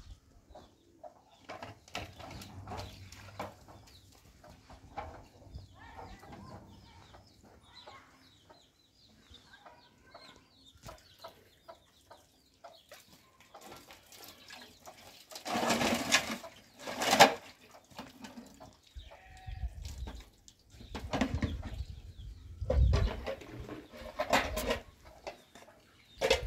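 Farmyard animals calling, chickens clucking among them, with a few louder noisy bursts around the middle and again near the end.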